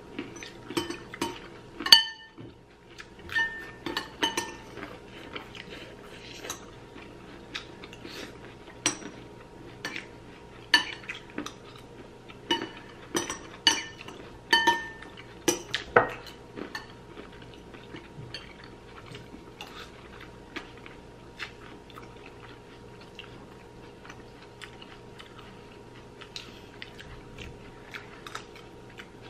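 Metal spoons and chopsticks clinking and scraping against ceramic bowls, with chewing. The clinks come thick and fast at first and grow sparser in the second half.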